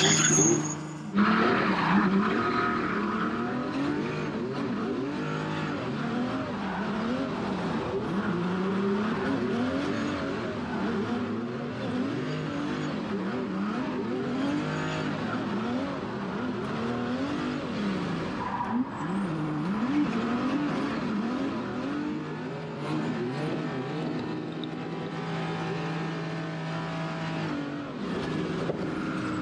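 Car engine revving up and down over and over as it is driven hard in a drift, with tyres skidding.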